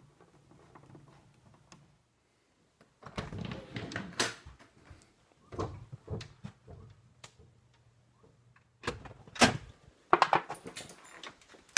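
Scattered knocks, clicks and rattles of things being handled, in short groups, with the sharpest clack about nine seconds in.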